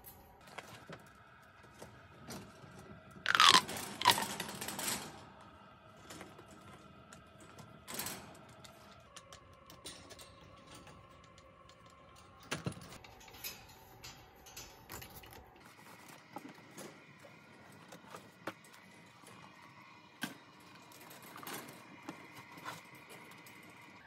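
Plastic fidget toys clicking and tapping against the wire bars of a chinchilla cage, in scattered light knocks. About three seconds in, a pink plastic pop tube is stretched loudly, giving a falling, whirring pull.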